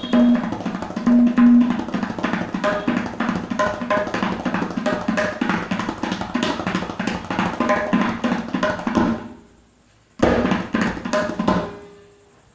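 Tabla played in a fast, dense run of strokes imitating the sound of running. The run stops about nine seconds in and dies away, then a short second burst of strokes follows and fades.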